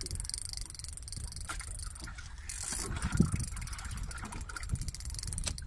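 Fishing boat's engine running steadily, with wind on the microphone.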